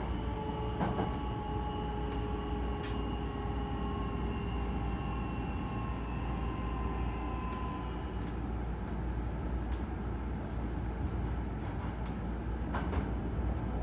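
Hankyu Takarazuka Line electric train running: a steady low rumble with a whine of several steady tones that stops about eight seconds in, and a few sharp clicks along the way.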